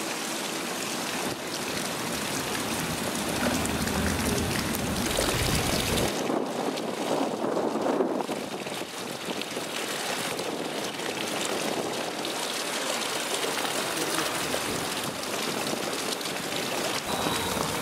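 Steady rushing noise of wind and water, with a gust buffeting the microphone about four to six seconds in.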